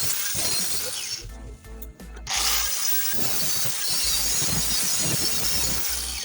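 Harsh, steady noise from metalwork on a rusted exhaust pipe. It comes in two spells, with a short break between about one and two seconds in. Background music plays underneath.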